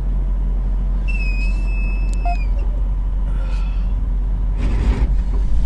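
Steady low rumble of a vehicle on the road, heard from inside the cab. A high, steady beep sounds for about a second and a half starting about a second in, and a short hiss comes near the end.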